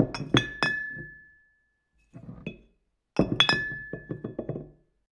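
A series of sharp clinks, as of small hard objects striking glass, coming in two clusters about three seconds apart with a faint pair between. Some clinks leave a high tone ringing on for about a second.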